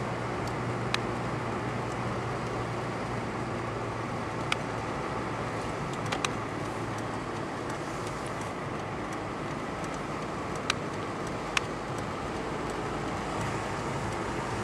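Steady road and engine noise of a moving car, heard from inside the cabin, with a low hum under it. A few brief sharp clicks break in now and then.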